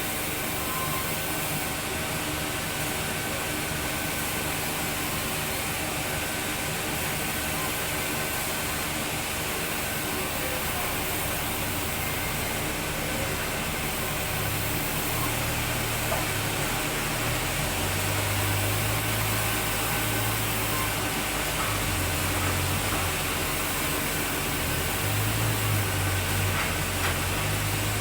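Sawmill machinery running steadily, a continuous mechanical noise with a low hum that comes in about halfway and rises and falls several times toward the end.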